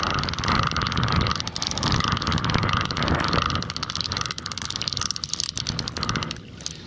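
A fishing reel's line clicker ratcheting in a fast, steady run of loud clicks as the spool turns while a hooked catfish is played, stopping near the end.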